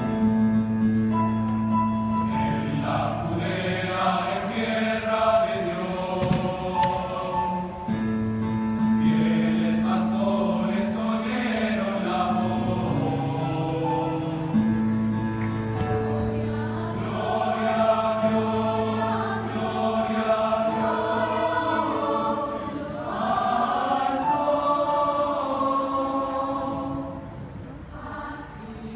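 A mixed choir of young women and men singing in parts, with held low notes under the voices, growing quieter near the end.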